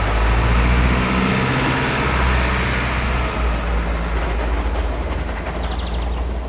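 Heavy truck engine running with a low, steady drone over road noise, dubbed onto a toy container truck. It gradually fades away over the last few seconds.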